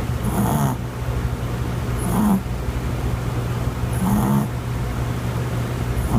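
A sleeping Maltese dog snoring: three short snores about two seconds apart.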